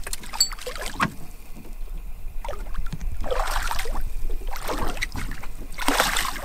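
Small fishing boat on the water: two swells of rushing water and wind noise, with a couple of sharp knocks about a second in and a steady low hum underneath.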